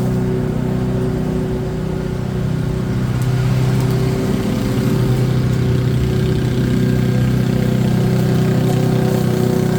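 Small petrol engine of a garden machine running steadily under load, its pitch sagging slightly and picking up again a few seconds in.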